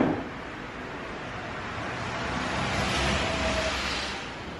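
Antique hand-cranked cider press apple grinder being turned, its cast-iron flywheel and gears giving a whirring hiss that swells about two seconds in and fades near the end.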